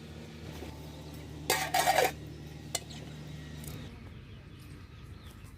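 A metal cooking pot clanking briefly as it is handled and set down, a second and a half in, then a single click, over a low steady hum that cuts off suddenly past the middle.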